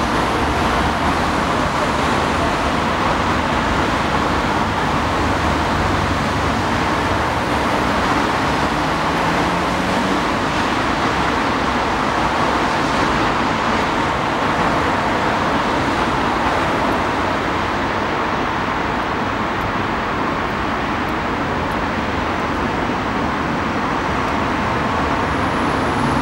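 Steady road traffic noise from cars driving past on a busy road, with a faint rising note near the middle as one vehicle passes.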